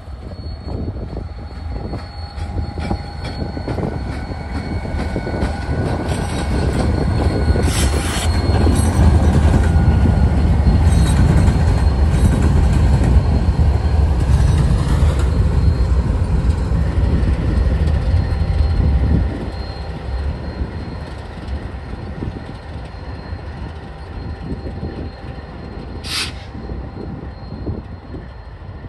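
Set of BNSF diesel-electric freight locomotives passing close by, their engines rumbling loud and building to a peak as the units go past, then dropping off sharply about two-thirds in. Thin steady squealing of the wheels on the curve runs over the rumble, with a short sharp high noise about eight seconds in and another near the end.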